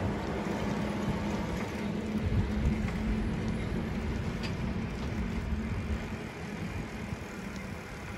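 Vehicle in motion: a steady motor hum over road and wind noise, growing somewhat quieter near the end.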